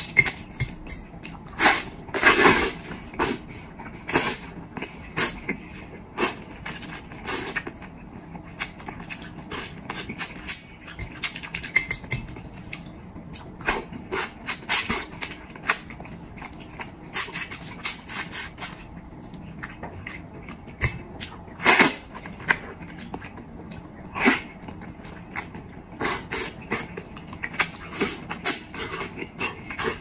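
Close-miked eating of soft, fatty soy-braised meat: wet chewing, lip smacking and sucking, heard as many irregular small clicks and squelches, with a louder, longer slurp about two seconds in and sharp smacks around twenty-two and twenty-four seconds in.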